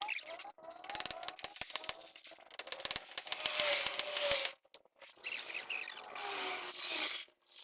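Hand-tool work on truck differential parts: a quick run of clicks like a ratchet wrench, then bouts of scraping and rubbing with short squeaks.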